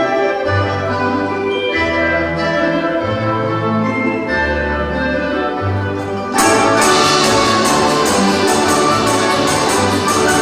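Russian folk instrument orchestra playing: held chords over a stepping bass line, then a little past six seconds in the full ensemble comes in suddenly louder, with rapid repeated plucked strokes from the domras.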